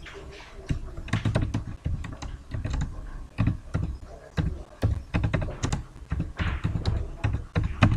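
Typing on a computer keyboard: a run of unevenly spaced keystroke clicks, several a second.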